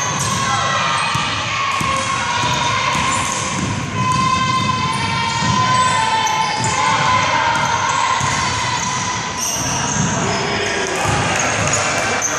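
Sounds of a youth basketball game in a gym: a basketball bouncing on the hardwood court, sneakers squeaking, and players and spectators calling out, all echoing in the large hall.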